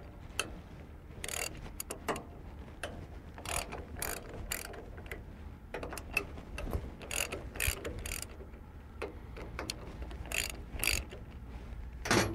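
Ratchet wrench clicking in short, irregular runs as the bolts of a hydraulic excavator's return filter cap are backed out. A louder clank comes near the end.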